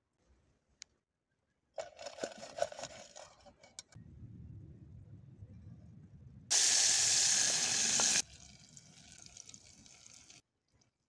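Food cooking in a pot over campfire coals: hissing and sizzling, loudest in a sudden strong hiss for about two seconds near the middle, then softer until it cuts off near the end.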